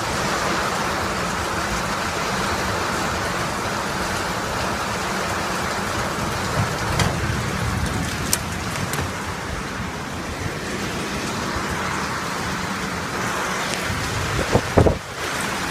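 Heavy rain falling steadily, a constant hiss of drops. Near the end there is a short, louder sound with a shifting pitch.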